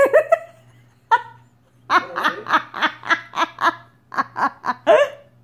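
A person laughing hard in quick repeated bursts, about five a second, in two long runs.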